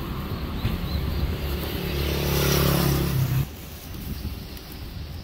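A motor vehicle's engine passing close by on the road, growing louder, then cut off abruptly about three and a half seconds in, leaving light street background.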